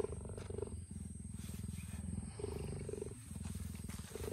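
Cheetah purring in a continuous, rapid low rumble that swells and eases with its breathing.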